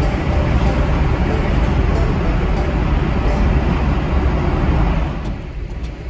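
Car road and tyre noise heard from inside the cabin while driving through a road tunnel: a steady loud rumble and hiss. About five seconds in, it drops off noticeably as the car comes out of the tunnel.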